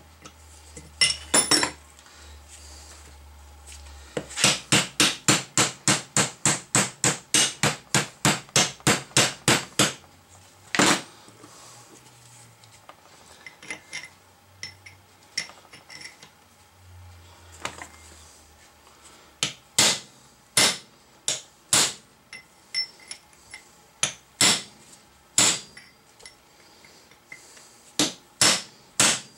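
A small ball-peen hammer striking a cold chisel wedged into the gap between a steering knuckle and its kingpin head, metal on metal, to widen the gap. A quick run of about four strikes a second lasts some six seconds, then lighter taps follow, then slower single strikes about a second apart.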